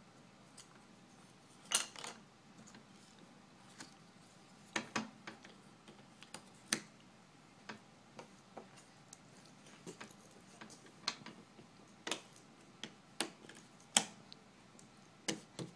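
Irregular light clicks and taps of jigsaw puzzle pieces being handled and pressed into a puzzle board on a tabletop, a couple of seconds apart at first and coming more often near the end.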